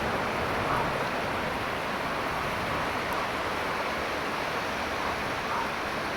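Ocean surf breaking and washing ashore, a steady rushing noise, with a faint click about three seconds in.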